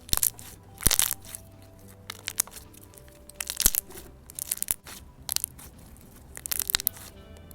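Thick, glossy slime worked by hand: bursts of crackly squishing and sharp bubble pops, about half a dozen times, over soft background music.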